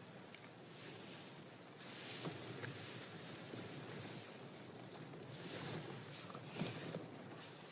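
Wind gusts and rain buffeting a Cloud Peak 2 tent, heard from inside: a steady rushing that swells and eases with each gust, with small ticks and taps on the fabric.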